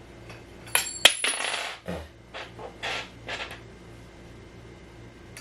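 Small hard parts of a flat-pack furniture kit clinking and rattling: two sharp clinks about a second in, a longer rattle, then three short rattles.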